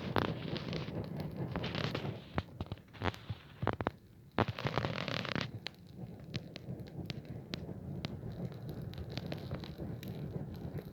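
Campfire crackling, with sharp pops and snaps scattered irregularly throughout. A few longer bursts of noise come in the first half.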